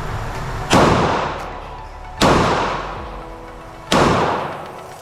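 Three 9mm pistol shots from a Glock 48, about a second and a half apart, each followed by a long echoing tail.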